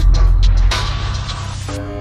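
Soundtrack music with a few sharp hits at the start, then a rushing whoosh.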